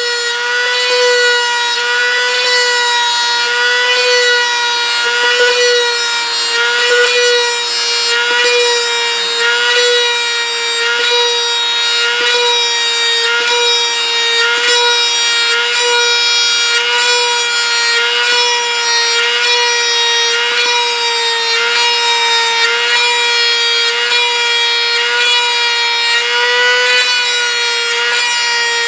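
Dremel rotary tool running at a steady high whine, a brass tube in its chuck rubbing against the model's surface to press in rivet rings, giving a rough scraping over the whine.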